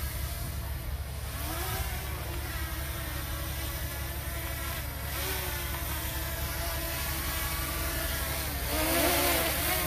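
Heavy diesel engines of earthmoving machinery running under load, their pitch shifting up and down, getting louder with a rise near the end.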